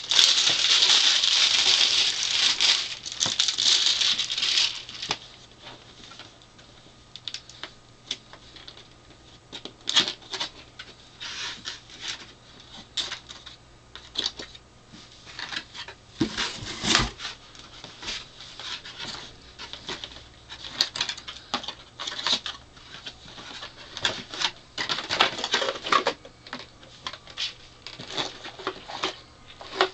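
Cardboard and plastic packaging being handled and pulled apart: a dense rustle for the first five seconds or so, then scattered clicks, taps and scrapes of cardboard, with a louder thump about 17 seconds in.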